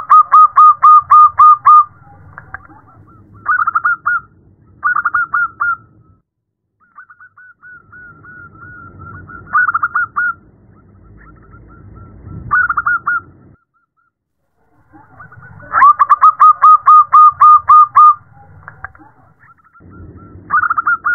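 Zebra dove (perkutut) cooing in staccato phrases. Two long runs of about nine quick, evenly spaced notes come at the start and again past the middle, with shorter bursts of a few notes between them. It is presented as a female's call to attract and rouse male perkutut. A low background rumble comes and goes underneath.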